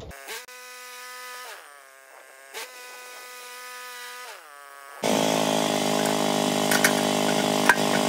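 Woodland Mills HM126 band sawmill's gas engine running at low speed, its pitch dipping and recovering twice. About five seconds in it jumps to a much louder, fuller run at high speed.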